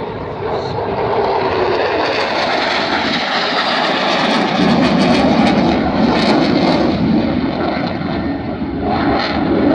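Jet aircraft flying past at an air display. The engine roar builds over the first couple of seconds and is loudest with a crackle about halfway through, then eases a little toward the end.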